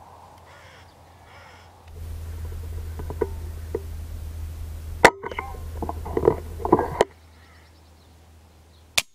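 A .22 pre-charged air rifle fires once, a sharp crack about five seconds in, at a wood pigeon perched on a wire. A scatter of softer knocks follows for about two seconds, over a steady low hum from the rifle's scope camera.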